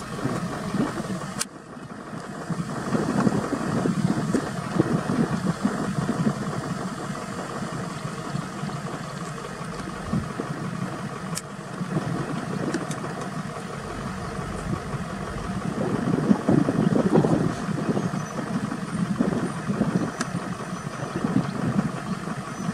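A vehicle's engine running at idle, a steady mechanical hum whose level swells and falls.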